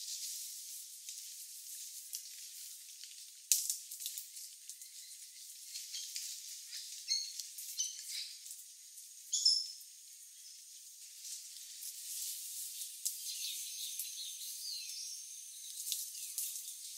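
Forest ambience: a steady high-pitched hiss with scattered crackles and a few short, high chirps about halfway through. No low sounds and no howling.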